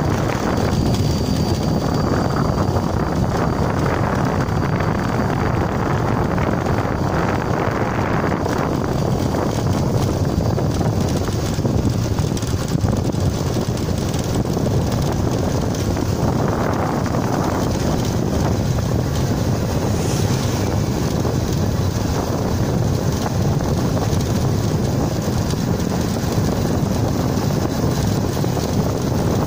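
Wind rushing over the microphone of a moving vehicle, a steady low rumbling noise that does not let up.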